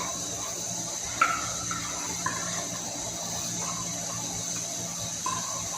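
Coleman 533 dual-fuel camp stove's pressurized burner running with a steady hiss, fitted with a new generator. A few faint short sounds rise over the hiss.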